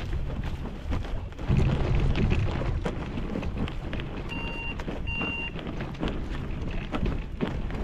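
Hang glider's basetube wheels rolling and bumping over rough grass, a steady rumble full of small knocks and rattles, loudest a second or two in. Two short electronic beeps sound about halfway through.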